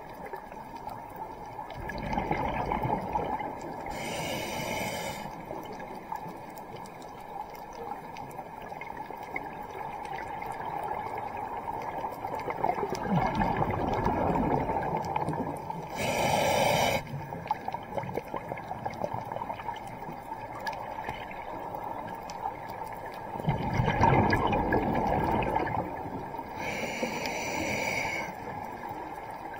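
Scuba diver breathing through a regulator underwater: three slow breaths. Each is a gurgling rush of exhaled bubbles followed by a short hiss of air drawn through the regulator.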